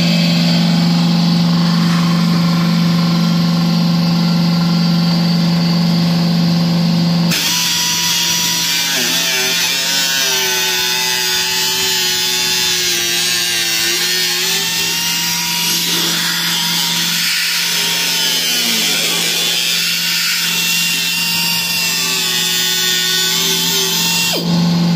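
A steady low hum with overtones for about the first seven seconds. Then a pneumatic cut-off tool cuts into the Corvette's firewall: a loud hiss and grind whose pitch wavers up and down as the wheel bites. The steady hum comes back just before the end.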